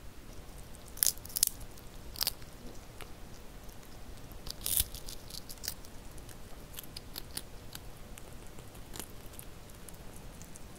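A kitten chewing and biting into a whole capelin, with sharp, crisp crunches of the small fish; the loudest crunches come about a second, a second and a half, two seconds and nearly five seconds in, with softer chewing clicks between.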